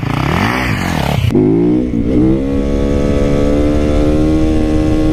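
Yamaha YZ450FX single-cylinder four-stroke supermoto engine revved up and down repeatedly with a gritty hiss of gravel as the rear wheel spins; about a second in the hiss stops and the engine climbs to high revs and holds there steadily under throttle.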